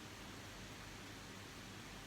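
Faint steady hiss with a low hum underneath: room tone, with no distinct sounds.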